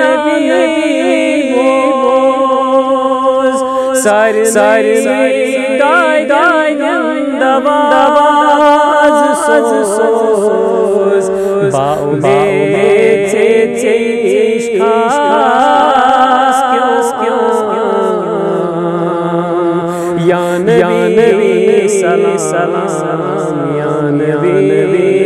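A man's voice singing a naat, an Islamic devotional song praising the Prophet, in long drawn-out, wavering melodic phrases.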